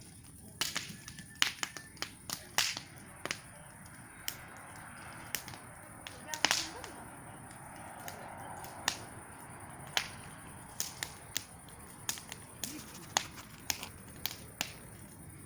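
Wood campfire crackling: irregular sharp pops and snaps of burning wood over a faint hiss.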